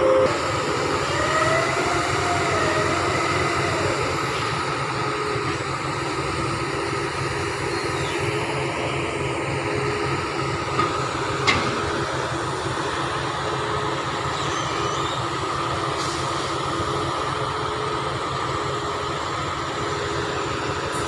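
Heavy diesel construction machinery running steadily, a drone with a whining tone that wavers up and down in the first few seconds. One or two sharp knocks come about halfway through.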